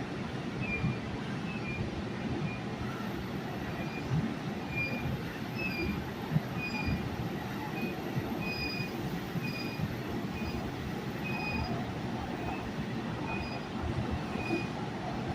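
Kolkata Metro Orange Line train running between stations, heard from on board. There is a steady rumble of wheels on rail, with short high squeaks coming about once or twice a second.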